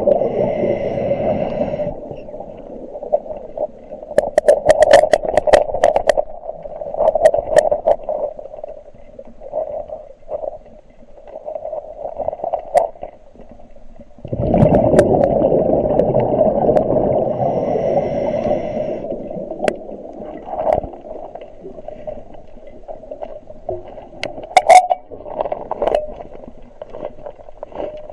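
Muffled gurgling water with scattered sharp clicks and knocks, heavier at the start and again about halfway through.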